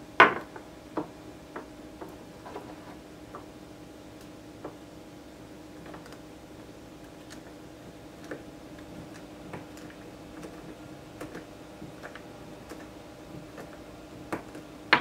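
Cylindrical 18650 lithium-ion cells handled on a wooden workbench, giving scattered small clicks and taps. A sharper knock comes just after the start and another near the end. A faint steady hum runs underneath.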